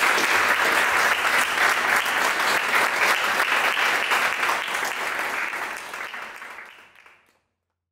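Audience applauding, a steady clatter of many hands clapping, fading out near the end.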